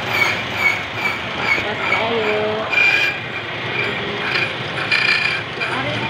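Benchtop key duplicating machine cutting a duplicate key: the cutter wheel gives a steady high whine with a grinding rasp as the blank is fed against it.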